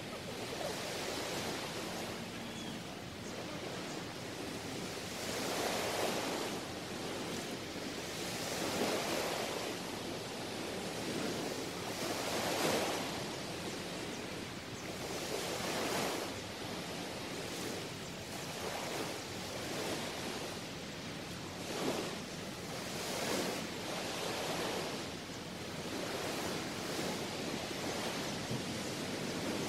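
Small sea waves washing onto a sandy beach, a steady rush of surf that swells softly every few seconds as each wave comes in.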